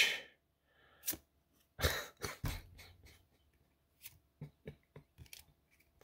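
Pokémon trading cards handled in the hands: scattered soft clicks and taps as cards are slid and flipped through the stack, with a small cluster of louder snaps about two seconds in and lighter ticks near the end.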